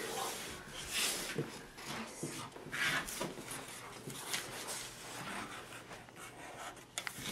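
Felt-tip marker scratching across paper in irregular strokes, with light handling of papers on a table.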